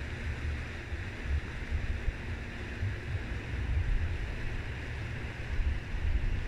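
Wind buffeting the microphone in uneven gusts, over a steady hiss of wind.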